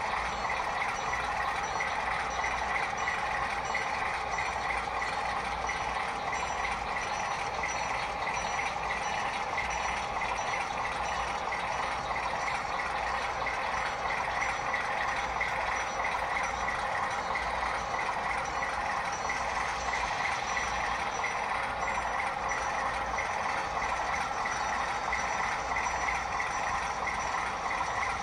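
Model railroad freight cars rolling along the track: a steady, fast mechanical rattle of small wheels and running gear.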